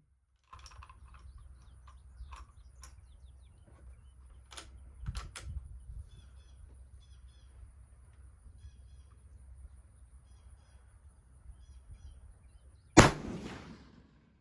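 A single rifle shot from a .270 Winchester bolt-action rifle (Steyr Pro Hunter) firing an 85-grain Barnes TSX handload, about 13 seconds in, the loudest sound, with a short trailing echo. Before it, several sharp clicks and knocks of the rifle being handled over a steady low rumble.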